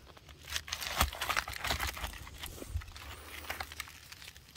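Crackling and scraping of rock being handled and shifted by hand among loose rock fragments: a quick run of small clicks and crunches, loudest about a second in, thinning out after the halfway point.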